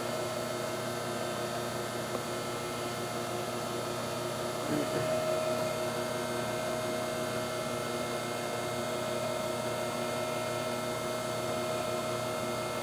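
Amada Meister Pro CNC surface grinder running an automatic grinding cycle: spindle and table drive running with a steady hum and several fixed whining tones. There is a brief slight rise in level about five seconds in.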